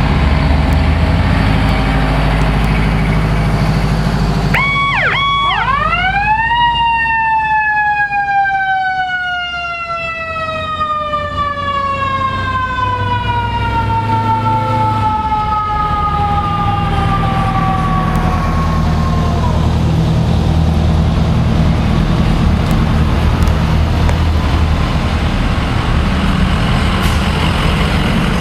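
Heavy fire-truck engines rumbling past at parade speed. About five seconds in, a fire-truck siren gives a couple of short blips, winds up quickly, then coasts down in one long falling wail that dies away about fifteen seconds later, the run-down of a mechanical siren.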